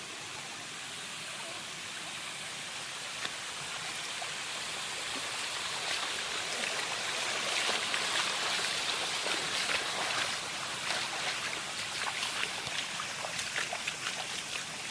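Water of a shallow stream running over rocks, a steady rush that swells around the middle, with many small splashes and ticks from about six seconds in.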